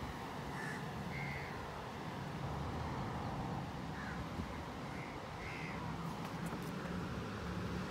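A few short bird calls over a steady low background hum.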